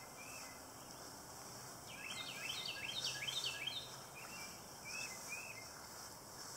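Small birds chirping in quick runs of short high notes, busiest in the middle, over a faint steady outdoor hiss.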